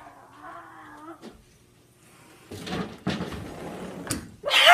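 Scuffling and clattering with a few sharp knocks, like things being bumped and knocked about, then near the end a loud, high, wavering cry.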